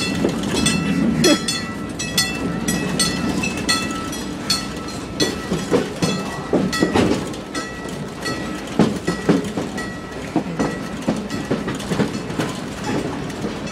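Passenger railroad cars rolling along the track, heard from on board. A steady low rumble runs under irregular clicks and knocks from the wheels and the car rattling, with short faint high-pitched squeals now and then.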